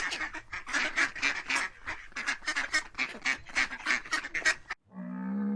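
Ducks quacking in a fast, unbroken run of harsh calls, about four or five a second. Near the end the quacking cuts off abruptly and a long, low, steady animal call begins.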